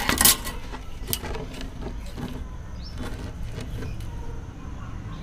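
Handling of a steel tape measure and a power cord: a quick run of sharp clicks and rattles at the start, then a few lighter clicks, over a steady low background rumble.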